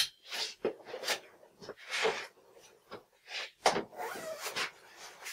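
Irregular rustles, scrapes and knocks of welding gear being handled and set down on a workbench, a few separate bursts with short gaps between them.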